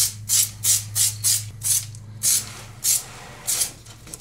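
Aerosol can of Loctite Professional Performance spray adhesive spraying in a run of short hissing bursts, about nine of them, a few a second at first and more spaced out toward the end.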